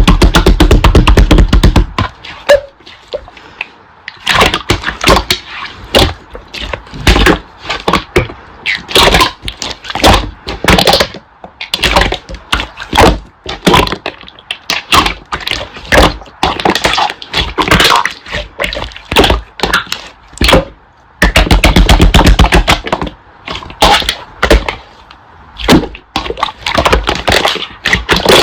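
Slime being squeezed, stretched and pressed by hand, giving rapid runs of sticky clicks and pops, with heavier squishing presses near the start and about three quarters of the way through.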